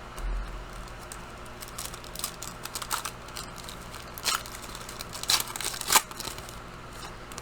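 Trading cards and crinkly pack wrapping being handled, with scattered crackles and clicks, the sharpest ones near the middle and about six seconds in.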